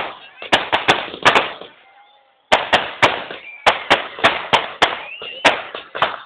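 Firecrackers bursting in quick, irregular succession: a string of sharp bangs with a short lull about two seconds in.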